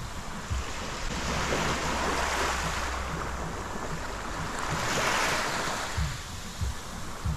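Small waves washing up a sandy shore and draining back, the hiss of surf swelling twice, with short low thumps of wind on the microphone.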